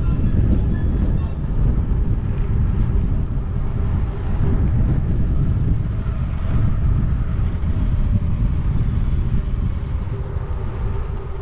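Wind rushing over the microphone of a moving bicycle, with its tyres rolling on a rough dirt and asphalt path: a steady low rumble.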